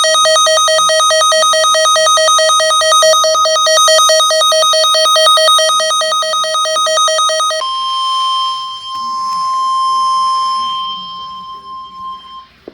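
Weather radio emergency alert tones: a rapid, buzzy electronic beeping for about seven and a half seconds, then the steady 1050 Hz NOAA Weather Radio warning alarm tone for about five seconds, which cuts off sharply. Together they announce an incoming severe thunderstorm warning.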